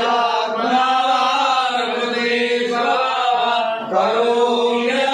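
Chanting of a Hindu mantra at a consecration rite, sung in long held notes, with one short break about four seconds in.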